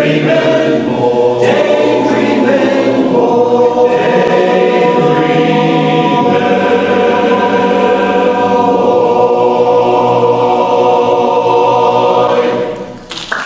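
Men's barbershop chorus singing a cappella in close harmony, ending on a long held final chord that is cut off about a second before the end. Applause breaks out just as the chord stops.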